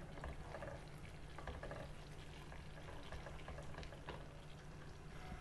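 Faint stirring of thick, simmering cream gravy in a nonstick pan with a wooden spatula, with soft bubbling and a few light scrapes.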